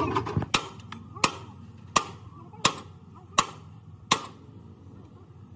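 Long-handled hammer striking a steel truck chassis rail: six blows at an even pace, about 0.7 s apart.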